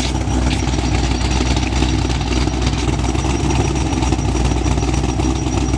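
Pontiac GTO's LS V8, with CNC-ported Trick Flow 225cc heads and a catless exhaust through Borla XR1 mufflers, idling steadily and loud, still running without a tune.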